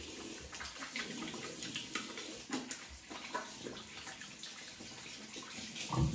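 Tap water running into a sink while hands are washed under it, with irregular splashing and small clicks.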